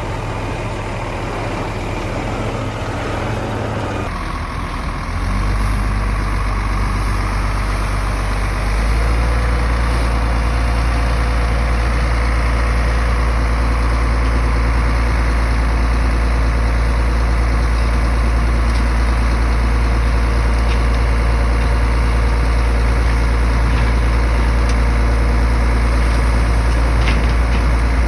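Diesel engine of a heavy earthmoving machine running steadily under load, a deep low drone that steps up in loudness about five seconds in and again about nine seconds in.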